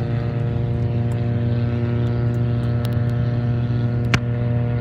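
A Mini Cooper making a steady droning noise: a low hum with a stack of even overtones that holds unchanged. A single short, sharp click comes about four seconds in.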